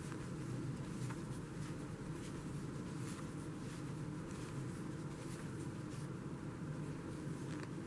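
Faint rustling and light scratching of a plastic crochet hook working chunky yarn, with a few soft clicks, over a steady low room hum.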